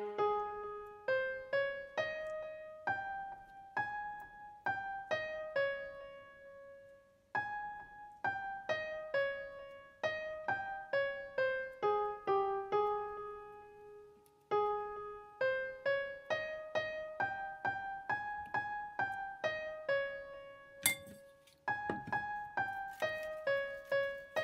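Background piano music: a slow melody of single struck notes, each ringing and fading, with a brief rustling noise near the end.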